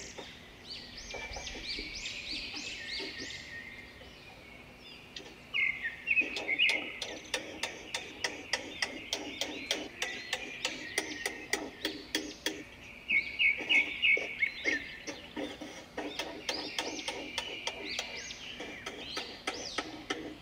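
Hammer driving nails into OSB roof sheathing: runs of quick blows, several a second, with a short lull about four seconds in.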